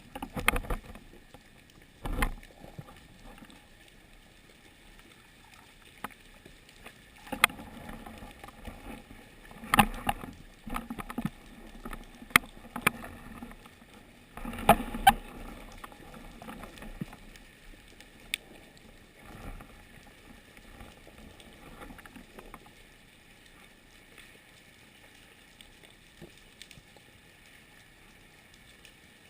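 Water sloshing and splashing around the microphone, with scattered sharp knocks, clustered in the first half and quieter near the end.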